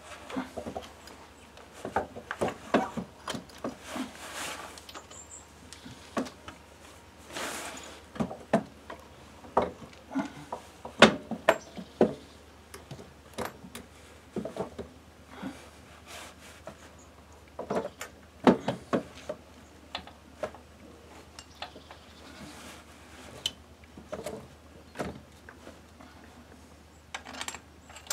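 Hand tools clinking and knocking on the metal parts of an opened Yamaha YBR 125 engine: irregular sharp metallic clicks with a few short rustles, as nuts on the engine are worked during reassembly.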